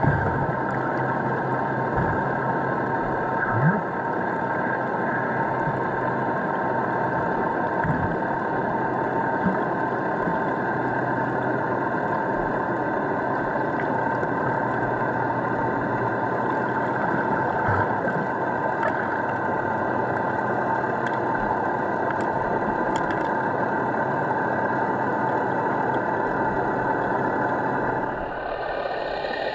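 Steady, muffled underwater noise picked up by a camera below the surface, with a low hum and a few faint knocks; the sound changes character near the end.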